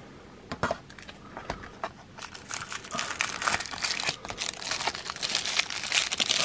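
Clear plastic case of a TOMIX N-gauge model train being opened by hand: a few sharp clicks of the plastic lid, then crinkling and rustling of the packaging from about two seconds in, getting louder toward the end.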